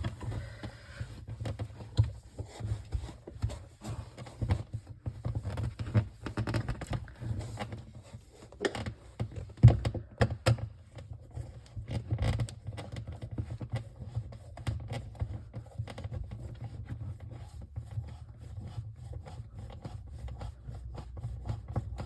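A plastic old-work electrical box being worked into a hole in drywall, scraping and rubbing against the sheetrock edge and the insulation behind it, with irregular clicks and knocks from handling, the sharpest about ten seconds in.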